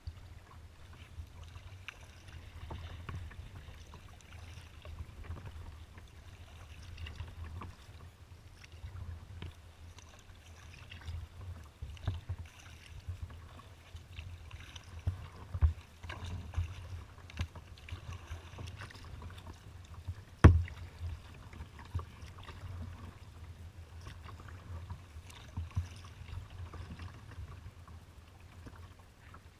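Kayak paddling: paddle blades dipping and splashing at a steady stroke rhythm, water lapping at the hull, and a low rumble. Occasional sharp knocks come through, the loudest about two-thirds of the way in.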